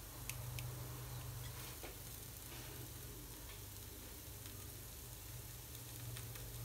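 Faint steady hum and hiss, with a few soft clicks and taps as hands spread filling on oiled msemmen dough and fold it over on a metal tray.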